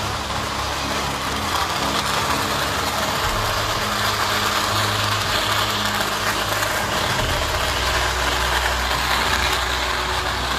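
Firecrackers going off in a dense, continuous crackle, mixed with the noise of a large crowd. Low droning tones run underneath and shift in pitch twice.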